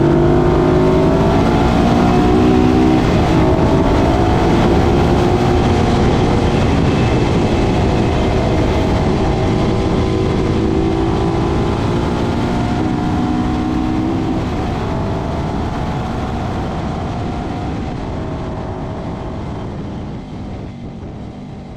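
Yamaha RD 250 two-stroke twin engine heard from onboard at racing speed, its pitch rising under acceleration and dropping back at gear changes. The sound fades out over the last few seconds.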